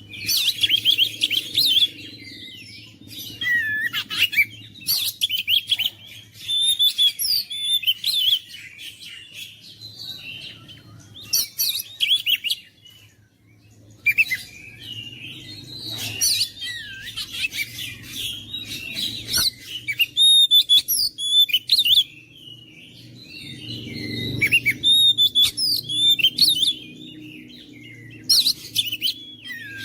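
Oriental magpie-robin (kacer) in vigorous song: runs of rapid, varied high whistles and chirps, each a few seconds long, broken by short pauses. A faint steady low hum runs underneath.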